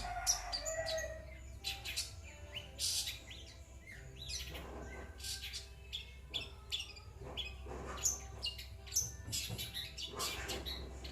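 Long-tailed shrike (cendet) singing: a rapid, irregular run of short chirps, scratchy notes and high whistled sweeps.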